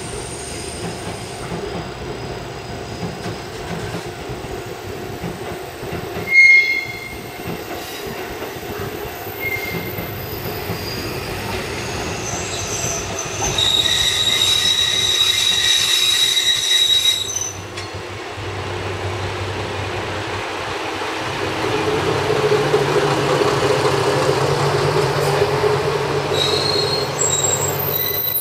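Kanto Railway KiHa 2000 single-car diesel railcar arriving at a station platform. Its running noise builds as it approaches, with a short loud sound about six and a half seconds in. High-pitched brake and wheel squeal comes in about halfway through for several seconds as it slows. Then a low, steady diesel drone as the car draws alongside.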